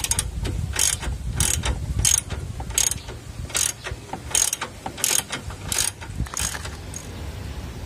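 Ratchet wrench worked back and forth, tightening a bolt: a short rattle of pawl clicks on each return swing, about one every 0.7 seconds, stopping about six and a half seconds in.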